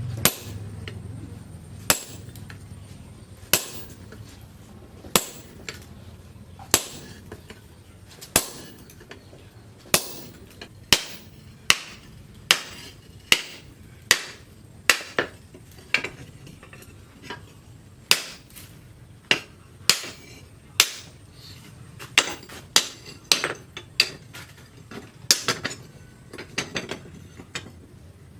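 Hammer striking leaf-spring steel on an anvil. At first there are single blows about every second and a half. From about a third of the way in they quicken to roughly one or two a second, and come in quick runs near the end.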